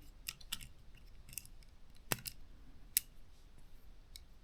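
Light, scattered clicks and ticks of small hand tools handling a drone's small plastic housing and parts, with two sharper clicks about two and three seconds in.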